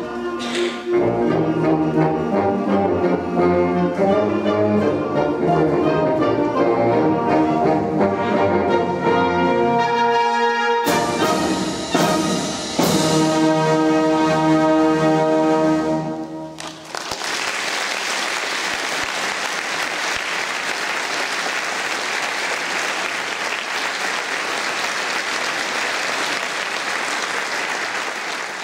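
Wind orchestra with brass playing the closing bars of a piece, with a brief break about eleven seconds in and final chords that stop about sixteen seconds in. Steady audience applause follows for the rest.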